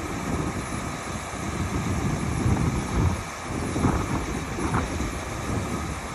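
Diesel engine of a John Deere 250D II articulated dump truck running with an uneven low rumble while the hydraulic dump body is lowered.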